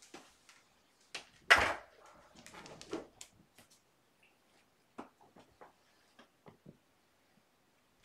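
Kittens pouncing and scuffling after wand toys, making scattered taps, rustles and scrapes, with one louder thump about a second and a half in.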